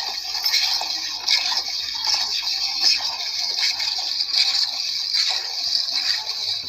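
Milk squirting from a cow's teats into a pail as she is milked by hand, a rhythmic run of hissing squirts.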